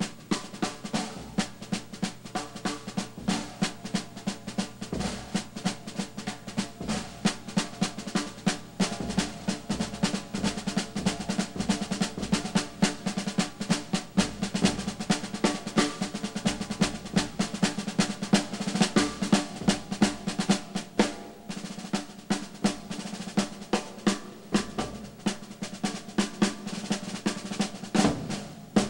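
Drum kit played solo with sticks: fast, dense snare-drum rolls and strokes with bass drum and rimshot accents. The playing eases a little past the middle, and one hard accent lands near the end.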